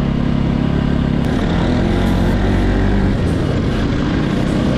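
Motorcycle engine running while riding, over a steady low rumble; the engine note holds steady, then shifts about a second in.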